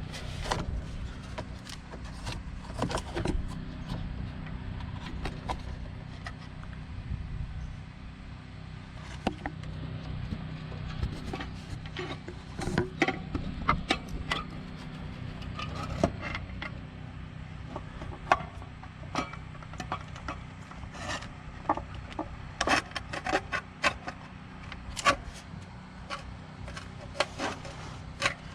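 Scattered light clinks, knocks and scrapes of a valve cover being worked back into place on an engine and its parts and tools being handled, coming more often in the second half, over a steady low hum.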